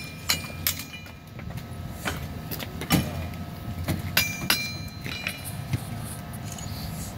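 Hammer blows on hot steel at an anvil: a dozen or so irregularly spaced metallic strikes, some leaving a short ring, the loudest about three seconds in, over a steady low hum.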